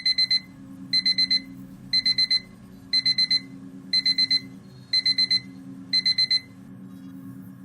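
Electronic alarm beeping in quick groups of four, one group a second, seven groups in all, over a steady low hum; the beeping stops about a second before the end.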